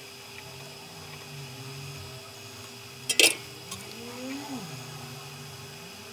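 A sharp metallic clink about three seconds in, as the soldering tools are put down and picked up, over a steady faint electrical hum. A brief low tone rises and falls shortly after.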